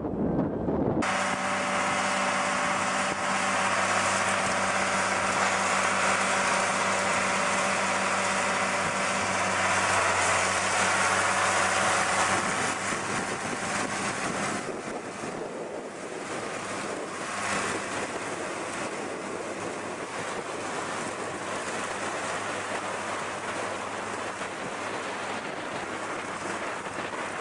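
Tractor engine running steadily, with wind noise on the microphone. About halfway through, the steady engine hum gives way to a more even rushing noise as another tractor works a hay rake across the field.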